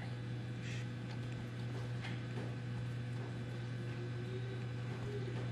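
Steady low hum with a few faint light clicks, about two seconds in.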